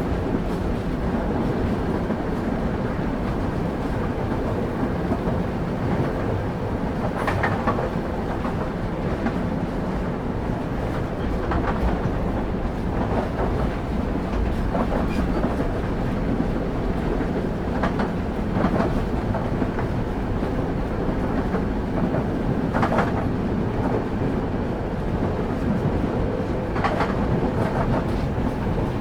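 Railway carriage rolling along the track, heard on board: a steady low rumble of the wheels with scattered clacks as they pass over rail joints.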